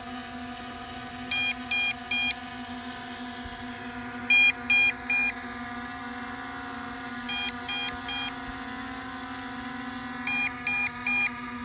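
MJX Bugs 5W low-battery warning beeping in groups of three short, high beeps, a group about every three seconds, over a steady hum. It goes off when the flight battery is only at about 50%, which the pilot finds annoying.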